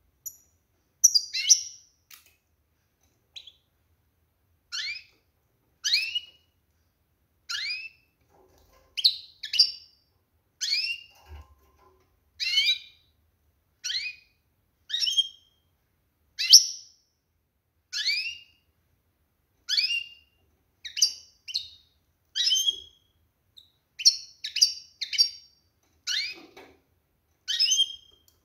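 Female European goldfinch giving a long series of short, sharp calls, each sliding down in pitch, many in quick pairs, about one pair a second. This is the call of a hen in breeding condition, calling to stir males into song.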